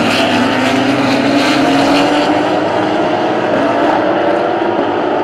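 A pack of sports-prototype and GT race cars running past on the track, several engines sounding at once. The loud, continuous mix of engine notes drifts slowly up and down in pitch.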